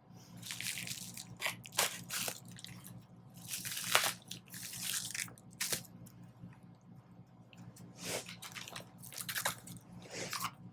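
Packaging being handled and torn open, a string of irregular crinkles and crunches, over a faint steady low hum.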